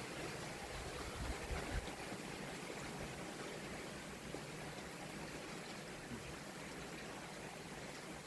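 Steady rain falling, an even hiss, with a brief low bump about a second and a half in.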